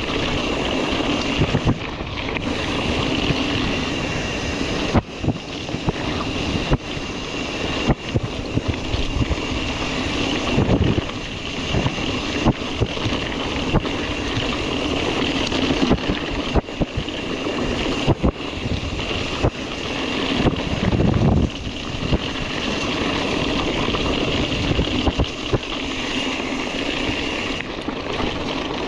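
Mountain bike riding over a rough dirt trail: steady wind on the microphone, with frequent knocks and rattles as the bike hits bumps.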